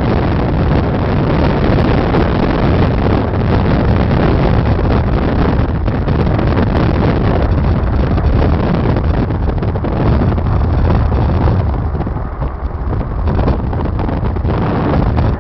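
Heavy wind noise buffeting the microphone in a moving car, over the car's steady road and engine rumble. The buffeting eases briefly about twelve seconds in.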